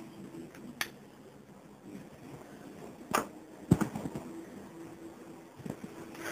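Four sharp knocks and clicks in a quiet room, the two loudest close together a little past the middle.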